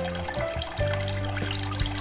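Instrumental background music of sustained low notes that change every half second or so. Beneath it is the trickle and splash of water pouring from the bamboo spouts of a cement-and-styrofoam tabletop waterfall.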